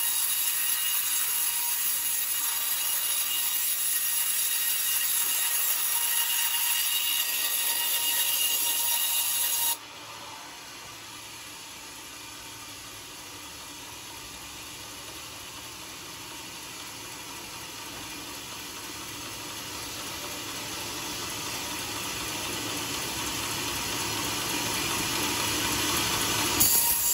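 Band sawmill blade cutting lengthwise through a hard coconut-palm log, a steady hiss of sawing. About ten seconds in the sound drops abruptly to a quieter level, then grows steadily louder, with a brief louder moment near the end.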